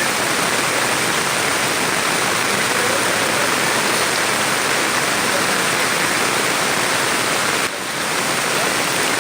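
Steady, loud rush of floodwater, with a brief dip in level about eight seconds in.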